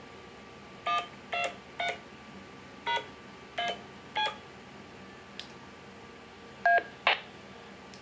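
DTMF keypad tones from a Baofeng UV-5R handheld transceiver: eight short beeps in three quick groups as digits are keyed in. They are the remote-control code that tells a Wouxun KG-UV920P to change its frequency.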